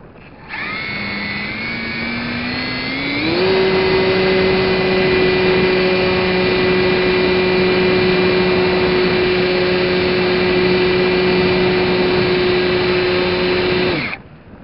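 Radio-controlled plane's motor and propeller running, mounted right next to the camera. It starts suddenly, rises in pitch as the throttle opens, holds a steady whine at full throttle, then cuts off abruptly as the propeller stops.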